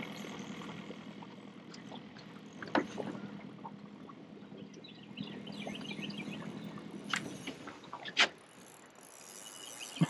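Jet boat's outboard motor running at low speed, a steady low hum that fades after about six seconds, with a few sharp knocks through it.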